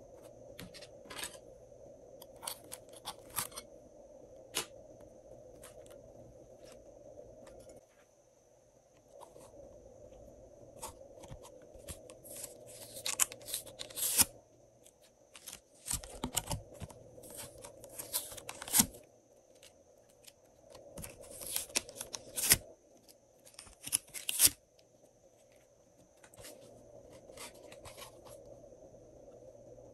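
Thin clear plastic being handled and peeled by hand, crinkling and crackling. The crackling comes as scattered clicks at first, then in dense bursts through the middle.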